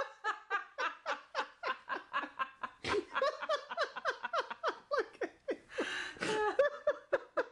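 A long fit of laughter in quick 'ha-ha' bursts, about four a second, with a louder shriek-like burst around six seconds in.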